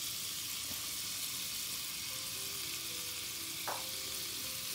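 Butter sizzling in a small saucepan on a gas hob, a steady fizzing hiss, with one light tap about three-quarters of the way through.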